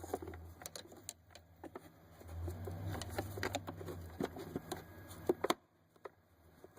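Scattered clicks, snaps and knocks of hard plastic as the tabs of a clipped-in plastic engine-bay trim piece are pried and pushed to work it loose, with the sharpest pair of snaps about five and a half seconds in. A steady low hum runs underneath and cuts off right after them.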